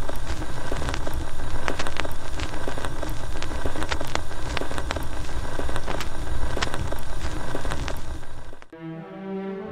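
Loud crackling noise, a dense hiss full of sharp pops, that cuts off suddenly near the end. Slow bowed-string music begins as it stops.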